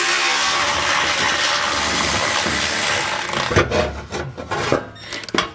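A power ratchet runs steadily for about three seconds, backing out one of the heat shield's 13 mm bolts, then a few separate knocks follow.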